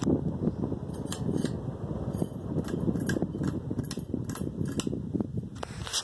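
Early-1980s 52-inch Hunter Reverse-Aire ceiling fan running, a steady low fluttering whir of the motor and blades moving air. Irregular light ticks sound over it, several to the second.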